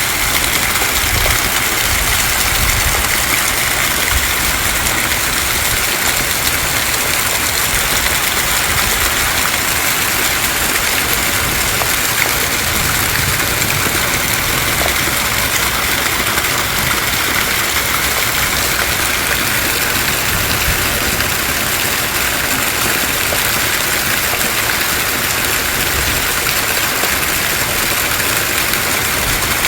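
Heavy rain pouring down steadily: a dense, unbroken hiss of falling water, with an uneven low rumble underneath.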